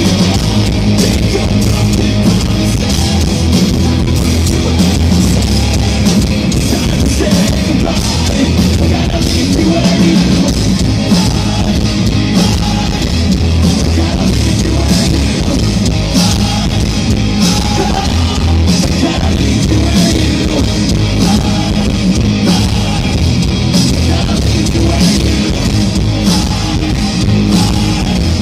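Rock band playing live through a stage sound system: loud, distorted electric guitars over a drum kit, steady with no break.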